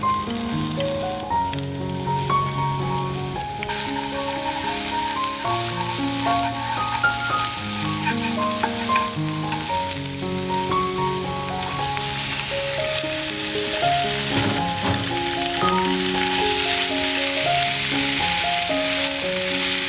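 Minced shallots and garlic sizzling in hot oil in a frying pan. The sizzle grows louder from about halfway through. Background music plays over it.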